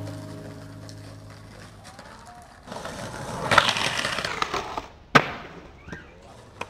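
Skateboard trucks grinding along a concrete curb for about two seconds, then one sharp clack as the board lands back on the pavement.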